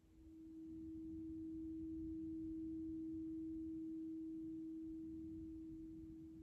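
Alchemical crystal singing bowl sounding a single pure, steady tone that swells over the first couple of seconds and then slowly fades.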